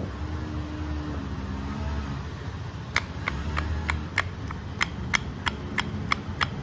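Motor-scooter crankshaft assembly being worked by hand while being checked for abnormal noise. From about three seconds in it gives sharp, evenly spaced metallic clicks, about three a second, alternating stronger and weaker: the kind of knock checked for as a sign of connecting-rod big-end wear.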